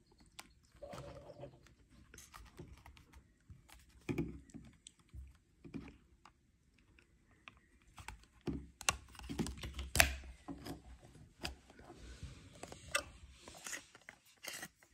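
Small plastic and metal parts of an Oral-B iO toothbrush handle clicking and scraping as a ring is worked off its base by hand. The light clicks are irregular, come thicker after the middle, and include one sharper click about ten seconds in.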